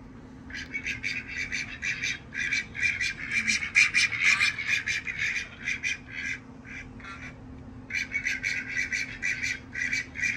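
Recorded duck quacking played back through a phone speaker: fast runs of quacks, several a second, with a short lull about two-thirds of the way through.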